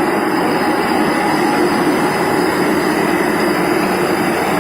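Turntable shot blasting machine running: a loud, steady, unbroken rush of machine noise.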